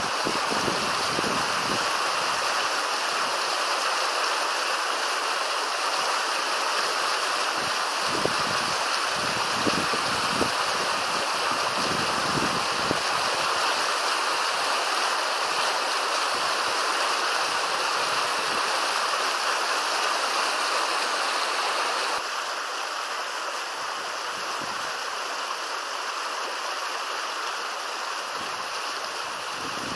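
River water flowing steadily, a continuous even rush of noise that drops a little in level about two-thirds of the way through.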